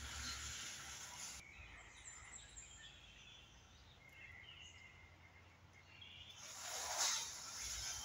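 Steady hiss of rain falling outdoors, easing off in the middle, with a few faint bird chirps; a louder rush swells and peaks about seven seconds in.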